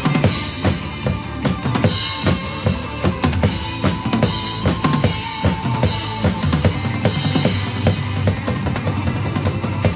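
Instrumental music led by a drum kit: a busy, steady beat of kick and snare strokes over pitched backing accompaniment, with no vocals.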